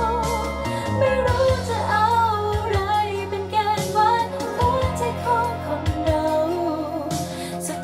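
Thai pop ballad: a female voice singing a wavering melody over bass and a regular drum beat.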